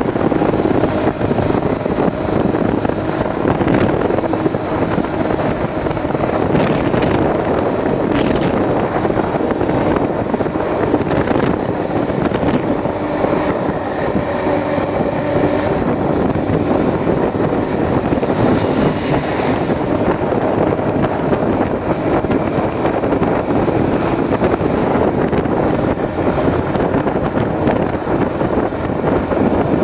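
Wind buffeting the microphone over a motorcycle engine running steadily while riding.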